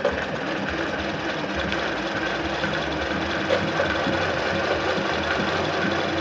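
Alfa Alfamatic 103-3 sewing machine running steadily with its bobbin winder engaged, winding thread onto the bobbin.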